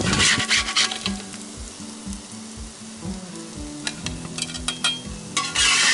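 Spatula scraping fried potatoes and onions across a Field Company No. 12 cast iron skillet over a steady sizzle. The scraping is loudest in the first second and again near the end, with quieter sizzling between.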